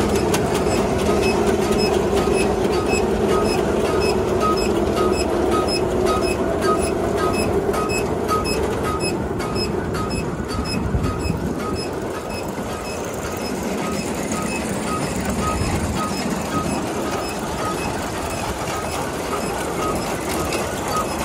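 McCormick-Deering threshing machine running empty, belt-driven from a tractor: a steady mechanical clatter of belts, pulleys and shakers, with a regular light tick a few times a second.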